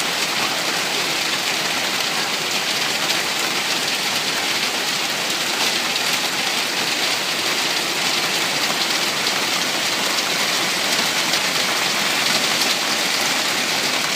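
Steady, heavy rain falling and pattering on surfaces, an even hiss with no thunder heard.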